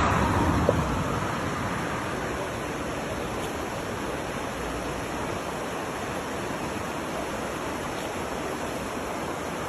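Fast-flowing floodwater rushing steadily, a little louder in the first second before settling.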